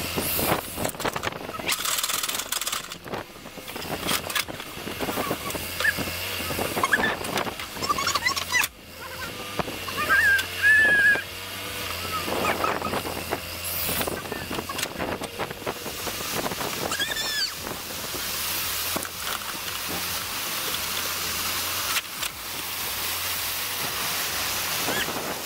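Backhoe loader's engine running as its bucket digs and scrapes wet earth from a pond bank, with water rushing through the cut in the bank near the end.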